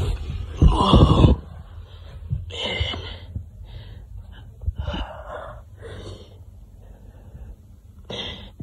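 A person breathing hard in a series of loud gasping breaths, the strongest about a second in, then several more spaced a second or two apart.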